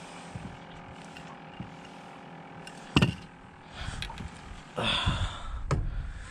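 Fishing gear being handled on a boat deck: small clicks over a steady hum, one sharp knock about three seconds in, then a louder rush of noise and another click near the end.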